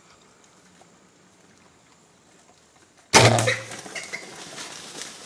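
A single sudden, loud hunting shot taken at feral hogs about three seconds in, with a brief low hum as it dies away, then a scattered rustle of noise after it. Before the shot it is quiet.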